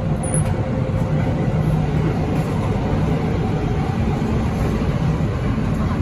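Cabin noise of a Hyundai Rotem electric multiple unit (MTR K-Train) running between stations: a steady low rumble from the wheels and running gear, with a faint steady tone above it.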